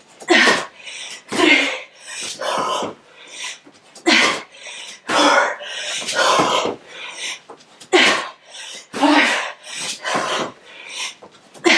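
A woman breathing hard in quick, forceful, noisy breaths, about one or two a second, some with a little voice in them: she is out of breath from doing burpees.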